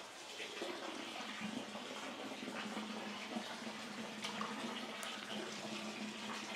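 Steady running and splashing water in a hot-spring bathing pool.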